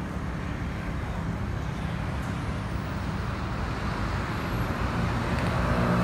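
Jet engines of a Boeing 737-800 (CFM56-7B turbofans), a broad rumble growing steadily louder as the airliner approaches overhead.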